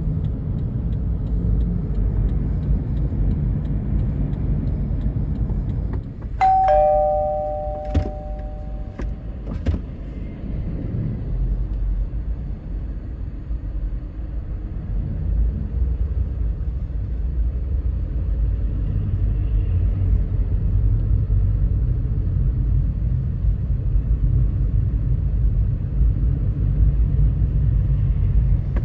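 Steady low rumble of a vehicle on the move. About six seconds in, a two-note falling chime rings out, followed by a few sharp clicks.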